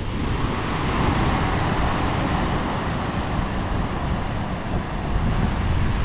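Wind buffeting the microphone over the wash of surf breaking on a rocky shore, the surf swelling a little in the middle.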